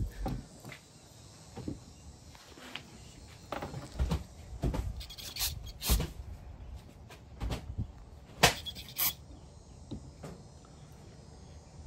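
Scattered sharp clicks and light knocks from handling a small two-stroke trimmer carburetor and a spray can of carburetor cleaner, with two louder clicks about three-quarters of the way through.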